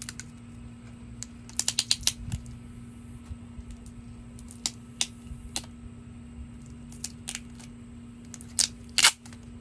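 A knife cutting and picking at tape and plastic wrap on a clear plastic cup: scattered sharp clicks and crinkles, with a quick cluster about two seconds in and two louder ones near the end.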